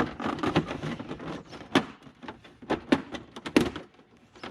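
Plastic motorcycle fairing panel being pulled loose and handled: a run of irregular clicks, knocks and light rattles, with the sharpest knocks in the second half.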